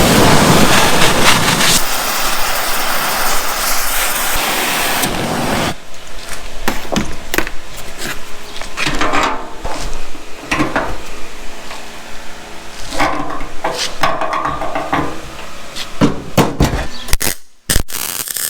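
Shop repair work on metal: a loud, steady harsh noise that stops abruptly about six seconds in, then a long run of separate metal knocks and clanks.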